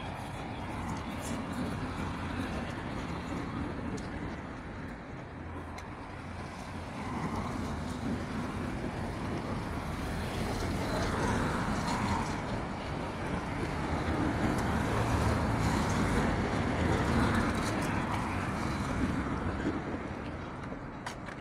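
Road traffic: cars driving past on the street, a steady wash of engine and tyre noise that swells and eases, loudest about two-thirds of the way through.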